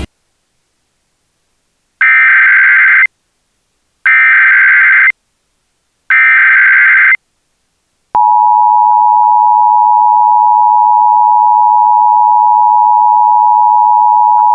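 Emergency Alert System tones. Three buzzy, warbling data bursts of the SAME header, each about a second long and a second apart, begin about two seconds in. About eight seconds in, the steady, piercing two-tone EAS attention signal starts and holds.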